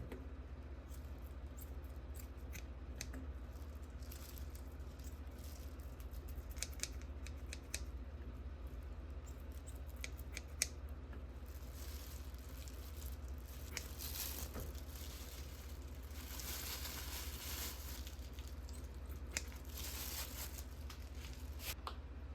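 Kitchen preparation sounds: scattered light clicks and taps, with a few stretches of rustling or crinkling about midway and near the end, over a steady low hum.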